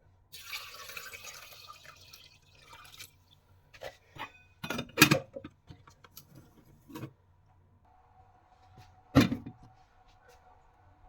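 Liquid poured for about three seconds, then clinks and knocks of kitchenware, with loud knocks about five seconds in and again about nine seconds in.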